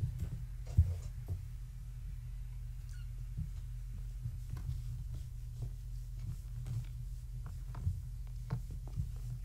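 Light scattered taps and scuffles of young kittens' paws scrambling over a fabric-covered floor and being picked up and set down, with one sharper thump about a second in, over a steady low hum.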